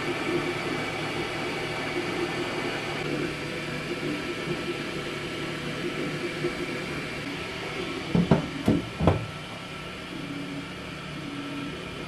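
Qidi X-Max enclosed 3D printer running, its fans giving a steady hum and its stepper motors whirring in short tones that change and stop as the print head moves. Three quick knocks come about eight to nine seconds in.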